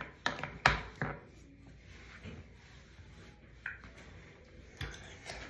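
Light handling noises: several sharp taps and knocks in the first second and another near the end, with faint rubbing in between.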